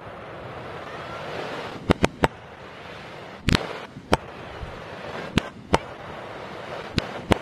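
Fireworks played backwards: a steady crackling hiss with about nine sharp bangs scattered through it, several of them in close pairs.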